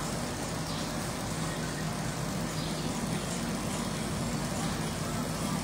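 Steady low mechanical hum with the wash of churning water from the shrimp-fishing pond, its water kept in constant motion.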